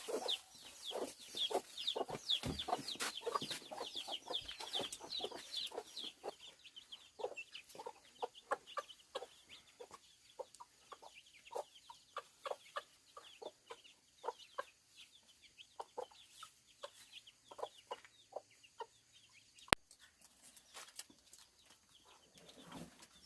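Chickens clucking and chirping in a steady run of short calls, the high chirps thickest in the first few seconds. A single sharp click about twenty seconds in.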